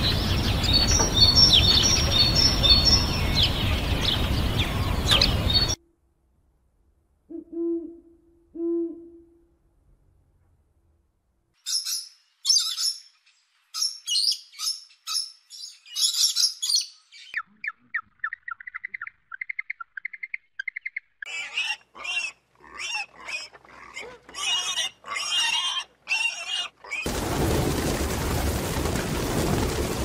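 A run of separate animal sounds. First, high peeping chirps from ostrich chicks over a steady noise. Then two short low hoots, and from about twelve seconds an Amazon parrot's chattering calls, including a rapid trill. Near the end a steady noisy scene of feeding pigeons comes in.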